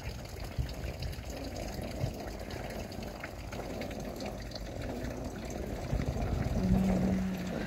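A plastic sled sliding down a snow-covered sidewalk: a steady scraping rush that grows louder toward the end, with scattered faint clicks. A brief held vocal sound comes near the end.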